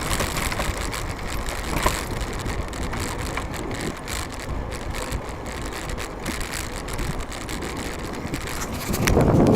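Wind rushing over the microphone with tyre and road noise from a moving home-built electric bicycle, with a few small clicks and a louder rush near the end.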